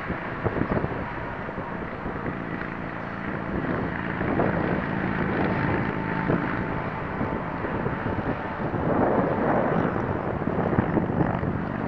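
Small electric motor and propeller of a foamboard RC plane running with a steady hum, under wind noise on the microphone.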